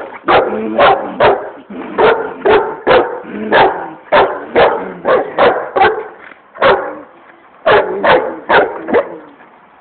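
Pit bull barking in a rapid series, about two barks a second, with a brief pause about seven seconds in.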